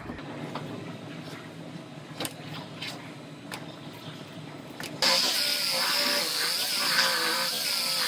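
Light clicks and taps of hands working the panel seam, then about five seconds in a handheld power tool starts up and runs with a loud steady hiss and a wavering whine as it works on the rear body panel that is being cut off.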